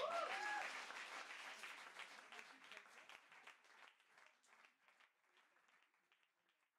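Audience applauding, with a brief whoop at the very start; the clapping fades out steadily over about five seconds.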